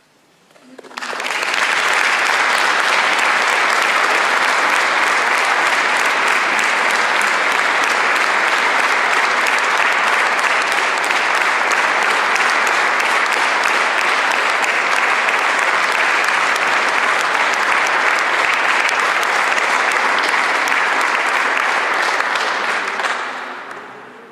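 Audience applauding at the end of a choir's song. It starts abruptly about a second in, holds steady, and dies away near the end.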